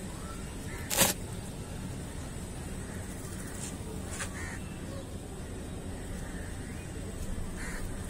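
Steady low background hum with a few faint, short bird calls, and a single sharp crack about a second in, the loudest sound.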